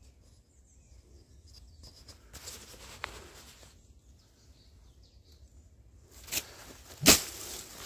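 Footsteps and rustling as someone pushes through dense brush and dry stalks, growing louder in the last couple of seconds with a loud crunch about seven seconds in. Faint bird chirps are heard in the quieter first part.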